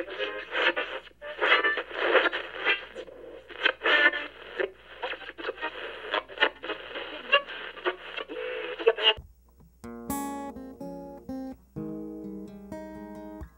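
Acoustic guitar music. For about nine seconds it sounds thin and tinny, as if through a radio, with quick strummed strokes. After a short break it turns into clear, full-sounding picked notes on an acoustic guitar.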